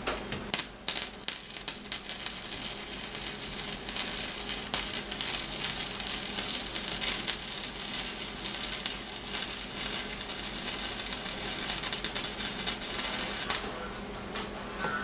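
Flux-core wire-feed welding arc crackling and sizzling steadily while a bead is laid, then cutting off about 13 seconds in.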